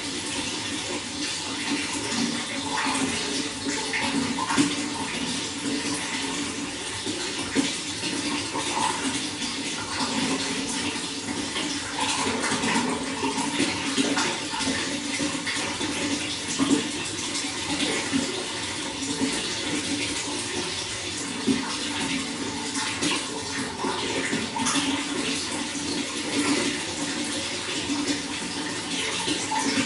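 Running water, splashing and gurgling steadily with small bursts of splashes throughout.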